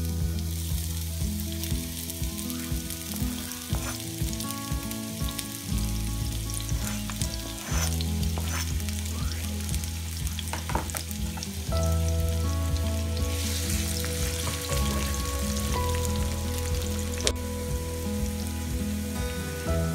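Sliced onion and chopped garlic sizzling as they fry in hot olive oil in a pan, with scattered clicks of stirring. Underneath is a low hum whose pitch shifts every few seconds.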